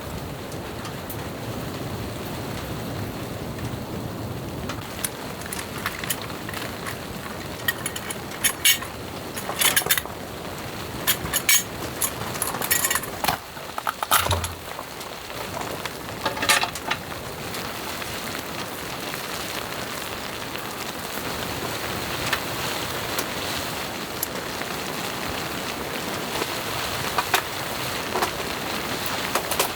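Steady hiss of falling precipitation, with a cluster of sharp clicks and knocks from about five to seventeen seconds in.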